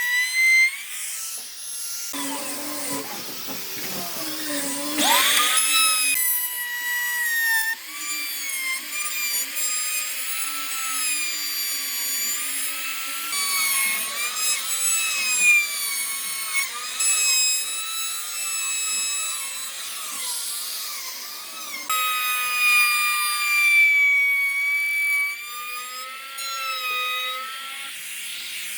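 Woodworking power tools running and cutting wood: a motor's whine that wavers in pitch as the tool loads, in a series of short segments that change abruptly every few seconds.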